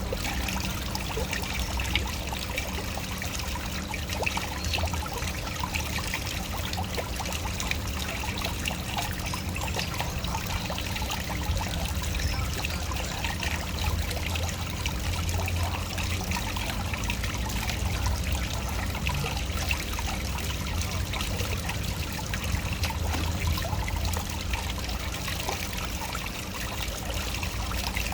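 Waterfall: water falling and splashing in a steady, unbroken rush, with a deep low rumble beneath fine trickling and splashing.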